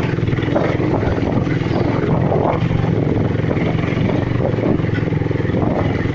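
Motorcycle engine running steadily while the bike rides over a rough, rutted dirt road.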